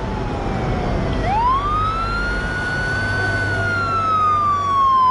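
Police car siren in a slow wail: the pitch falls, climbs sharply about a second in, then sinks slowly again, over a low rumble.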